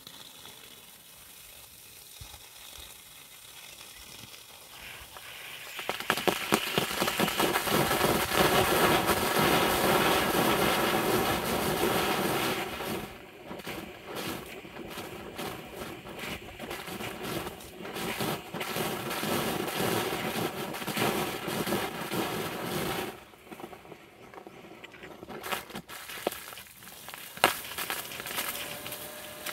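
Agricultural rain gun sprinkler whose water jet comes and goes: a faint hiss at first, then a loud crackling spatter of water from about six seconds in that fades out near the end, with a few sharp clicks.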